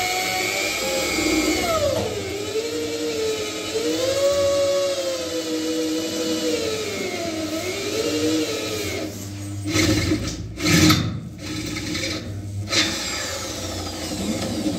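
Corded electric drill boring into a sheet-metal partition panel: the motor whines, its pitch sagging and recovering as the bit loads up. About nine seconds in it turns to a few seconds of rough grinding with several loud knocks, then the whine returns.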